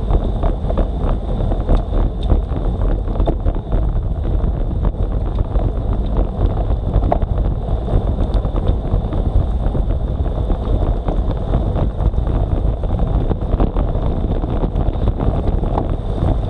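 Wind buffeting the microphone of a bike-mounted action camera on a road bike riding at speed, with steady tyre and road noise on wet asphalt and scattered small ticks and rattles.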